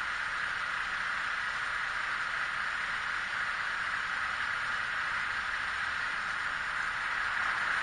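Diesel dump truck idling steadily: an even hiss with no clear engine beat.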